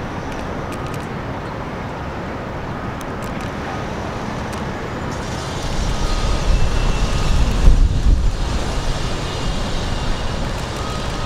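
Road traffic noise, with a vehicle passing close by. It swells from about six seconds in, is loudest near eight seconds, then fades.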